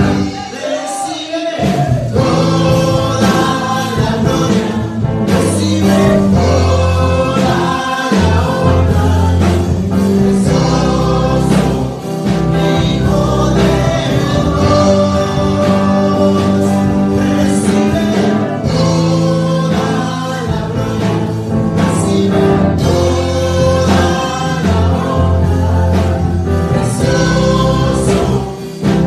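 A young woman and a man singing a worship song together into microphones, over instrumental accompaniment with steady bass notes.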